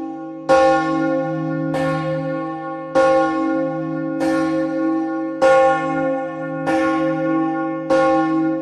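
A single church bell ringing in an even rhythm, struck about once every 1.2 seconds, seven strikes in all, each stroke ringing on under the next.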